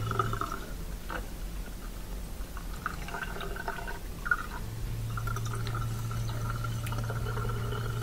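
Dishwasher drain water running out into a kitchen sink drain, with a steady low hum that comes back in about five seconds in. The drain sounds good: the drain pump is emptying the dishwasher freely.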